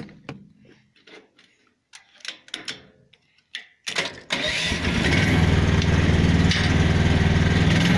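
A few light clicks and knocks, then a mini excavator's engine cranks briefly and starts about four seconds in, settling into a steady run.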